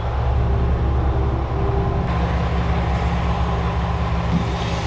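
JR West KiHa 120 diesel railcar's engine idling, a steady low hum with a faint higher tone over it.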